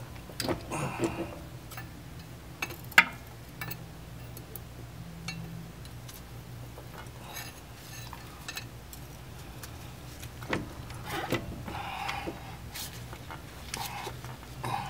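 Steel pry bar scraping and clinking against metal as it levers a CV axle's inner joint out of the transmission, with scattered knocks; a sharp knock about three seconds in is the loudest.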